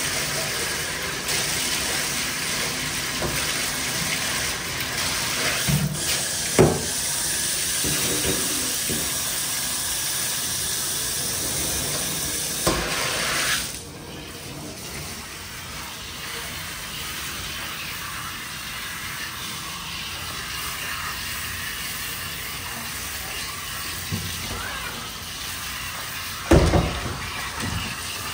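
Water spraying from a handheld shower head onto a wet cat's fur in a bathtub as the shampoo is rinsed out, a steady hiss that becomes quieter about halfway through. A few dull thumps, the loudest near the end.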